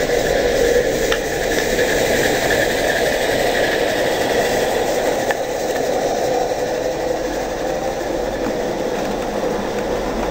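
A 16 mm scale live steam garden train, pulled by three steam locomotives, runs past on the track with a steady rolling rumble of its wheels and coaches.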